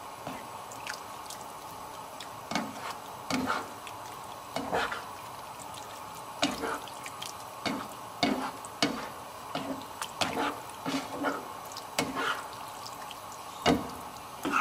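A spatula stirring a thick coconut-cream fish curry in a frying pan: irregular wet squelches and scrapes, about one or two a second, over a faint steady hum.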